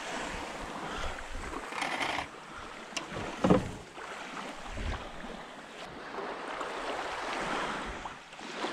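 Small waves washing on the sand and wind on the microphone while a small boat is handled in shallow water, with one loud knock about three and a half seconds in.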